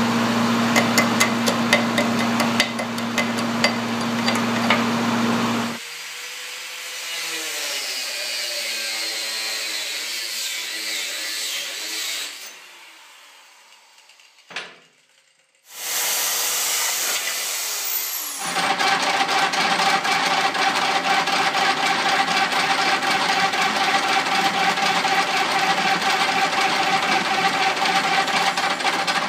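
Electric arc welding crackling over a steady low hum for the first six seconds. Then a motor winds down, an angle grinder grinds metal briefly, and from about eighteen seconds in a metal lathe runs steadily.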